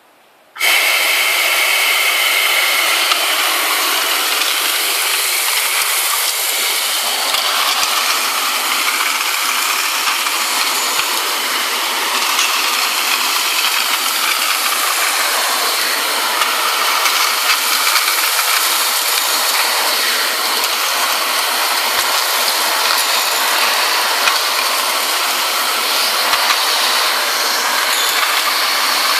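Air Plus APV-20 compressed-air-driven wet/dry vacuum cleaner switching on about half a second in, then running with a steady rush of air.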